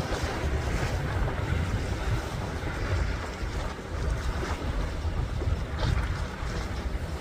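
Wind buffeting the microphone in an uneven low rumble, over a steady wash of sea.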